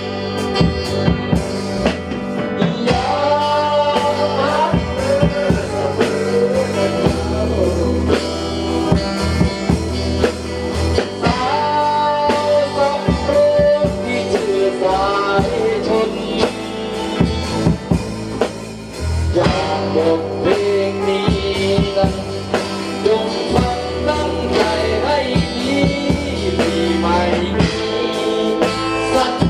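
A band playing a song, with a singer's voice over drum kit and guitar and a steady beat.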